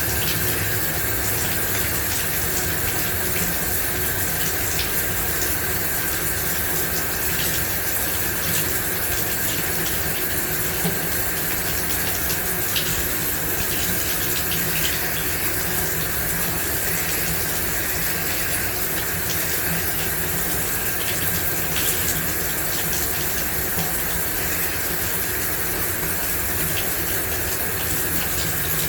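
Shower running steadily: water spraying from the shower head and splashing down, with small drips and ticks in the spray.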